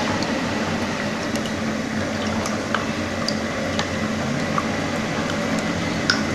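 Spatula stirring thin starch-and-coconut-milk batter in a plastic bowl: soft liquid squishing with a few light clicks of the spatula against the bowl, over a steady background hiss and hum.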